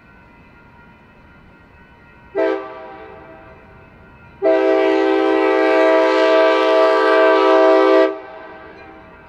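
Passenger locomotive's air horn sounding the end of the grade-crossing signal, a chord of several notes: a short blast about two seconds in that rings away, then a long blast of nearly four seconds.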